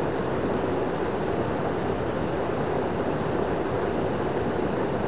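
Mountain stream rushing steadily, an even wash of flowing water.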